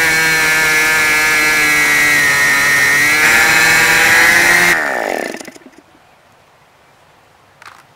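OS 46 LA two-stroke glow engine running at full throttle with an APC 11x6 propeller, at about 10,950 rpm. About four and a half seconds in, it picks up slightly and then cuts out as the fuel line is pinched, its pitch falling away as the propeller spins down to a stop. A faint click near the end.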